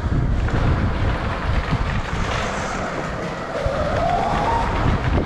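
Onboard sound of a dirt bike riding over a packed-dirt track: a steady rumble and rattle of tyres, chain and suspension with wind on the microphone, and a motor whine rising briefly about four seconds in.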